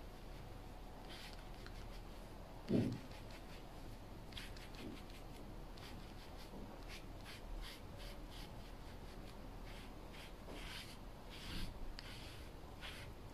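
A grooming brush stroked through a tabby cat's fur: soft, scratchy rasps repeating in short irregular runs. A single dull thump about three seconds in is the loudest sound, with a fainter one near the end.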